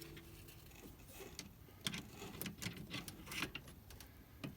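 Faint, irregular small clicks and taps of hand work on a brake pressure switch: rubber grommet washers being handled and worked onto the switch's threads.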